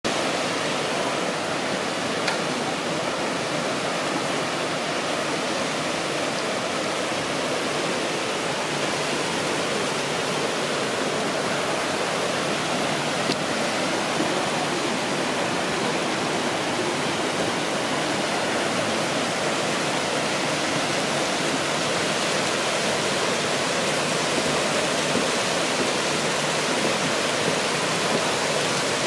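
Hot spring water rushing along wooden troughs and cascading into a pool: a steady rushing.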